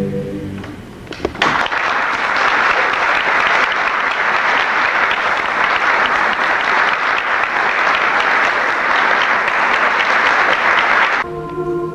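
Audience applauding after a choir's a cappella madrigal, starting about a second in as the last sung chord dies away. The applause cuts off abruptly near the end, and the choir begins singing held notes.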